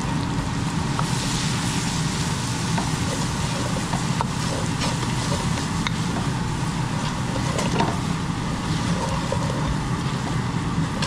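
Curry masala frying in hot oil in a pot, a steady sizzle over a continuous low rumble, with a few small clicks.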